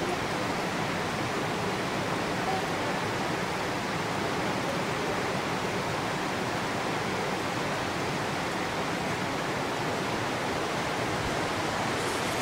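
Steady, unbroken rushing of creek water, an even roar with no rhythm or breaks.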